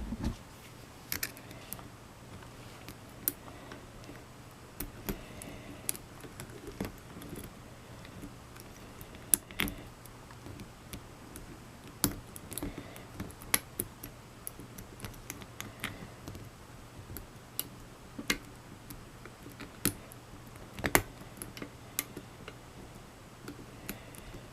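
Lock pick working the pins inside a Garrison steel padlock: irregular small metallic clicks and scrapes, with a few sharper clicks.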